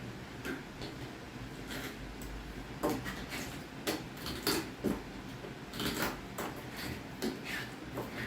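Stainless steel caulk removal tool scraping and picking old caulk out of a shower seam: irregular short scrapes and clicks, several a few seconds apart.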